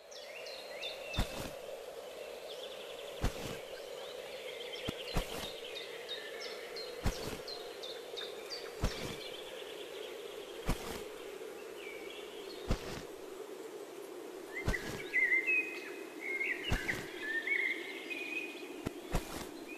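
Small birds chirping over a steady hum, with a short thud about every two seconds. A burst of louder chirping comes in during the last few seconds.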